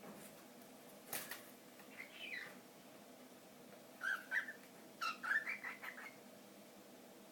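A small pet's short, high chirps and squeaks, sliding in pitch, in three little groups about two, four and five seconds in. A brief rustle or knock comes just after a second in.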